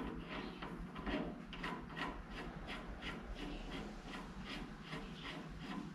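Left-hand-threaded arbor nut being spun by hand onto a brake lathe's threaded arbor: a soft metal-on-metal rasp of the threads, in quick repeated strokes about three a second.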